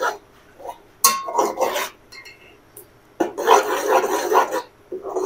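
Slotted metal spatula stirring thick tomato-onion paste in an aluminium pot, scraping the pot in two strokes of about a second each.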